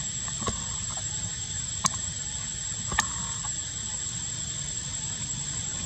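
Outdoor ambience: a steady high-pitched insect drone over a low rumble, broken by three short sharp clicks or chirps in the first three seconds.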